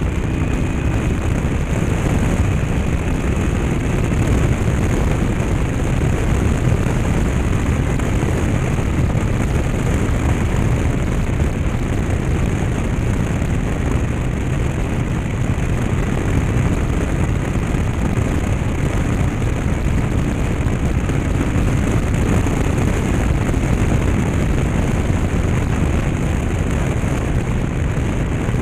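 Yamaha TDM850 parallel-twin engine running at a steady road speed, mixed with constant wind rush on the action camera's microphone, partly damped by fluff stuck over the mic.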